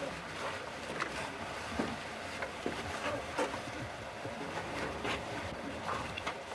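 Footsteps on a sandy floor: soft irregular steps about every half second to a second, over a steady hiss.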